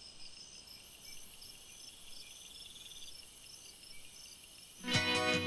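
Faint, high, steady chirping of insects such as crickets. Strummed guitar music starts near the end.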